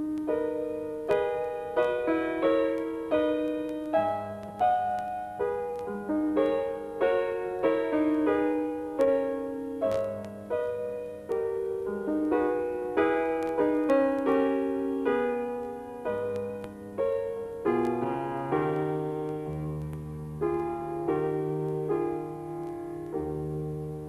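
Piano music: a slow melody of single struck notes, each dying away, over low bass notes.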